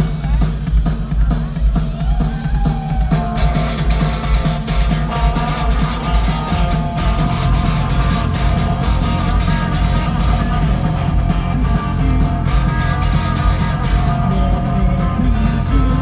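Live rock band playing loudly: electric guitars and bass over a steady drum-kit beat, heard from within the audience at a concert.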